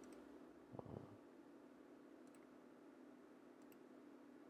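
Near silence: quiet room tone with a few faint computer mouse clicks as line segments are placed, and one soft low thump about a second in.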